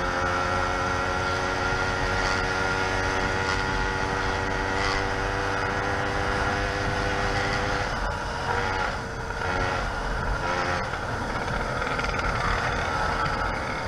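YD100 two-stroke motorized-bicycle engine with a window piston running at a steady speed. About eight seconds in, its note wavers and drops for a few seconds, then settles steady again.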